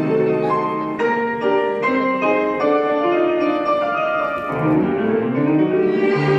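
Piano playing a classical passage, its separate notes coming a few a second. Bowed strings of a violin ensemble come back in about two thirds of the way through.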